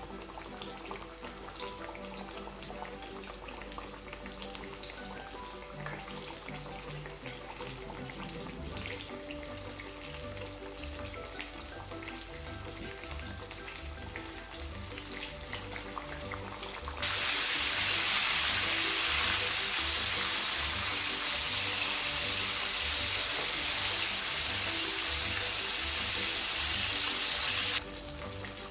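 Battered fish frying in hot oil, a fine crackling sizzle under background music. About two-thirds of the way in, a much louder, dense hissing sizzle starts abruptly and cuts off just as suddenly about ten seconds later.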